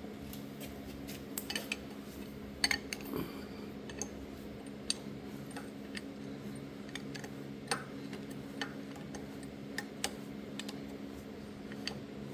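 Scattered light metallic clicks and clinks of hand tools and distributor parts being handled, over a steady low hum.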